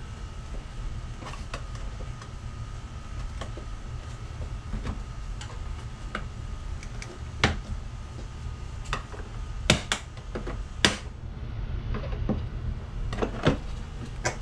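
Plastic retaining clips on a 2022 Hyundai Palisade grille snapping and popping as they are pried loose with a trim-removal tool: scattered sharp clicks, most of them and the loudest in the second half, over a steady low hum.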